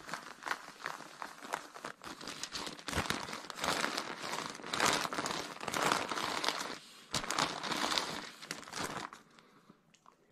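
Baking paper crinkling and rustling as a small travel iron is slid and pressed over it and a hand holds it flat. The crackle is loudest mid-way and dies away about a second before the end.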